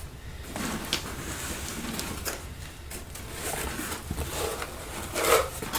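Cardboard shipping box being opened by hand: scattered clicks and rustling of flaps and packing.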